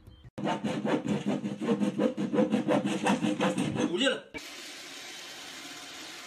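Rapid back-and-forth sawing strokes on a wooden board, mixed with voices, starting abruptly and cutting off after about four seconds. A steady, even hiss follows.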